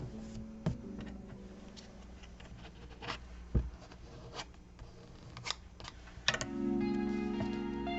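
Scattered sharp clicks and snips of scissors and paper being handled, over soft guitar background music that grows louder about six seconds in.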